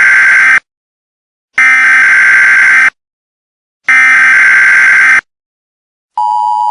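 Emergency Alert System SAME header: loud bursts of digital data tones, each a little over a second long with about a second of silence between them, three bursts in all. About six seconds in, the steady two-tone EAS attention signal begins, announcing a new alert.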